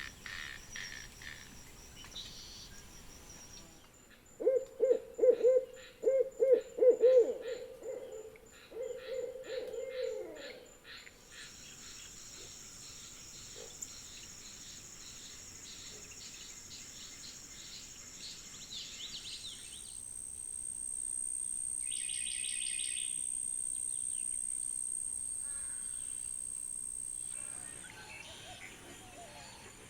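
A sequence of wild-animal ambiences: fast high trilling at first, then an owl hooting loudly in a rapid series of low calls for about six seconds, followed by high, pulsing insect choruses and a long, steady, very high-pitched insect drone that stops a couple of seconds before the end.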